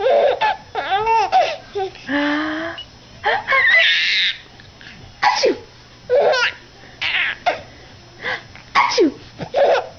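A baby laughing hard in repeated short bursts of giggles and belly laughs, with two noisier bursts about two and four seconds in.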